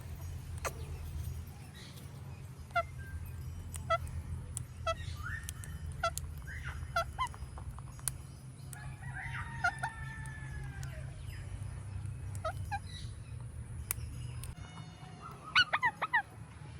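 Indian ringneck parakeet calling: short calls about once a second, a longer drawn-out call in the middle, and a quick run of the loudest calls near the end, over a steady low rumble.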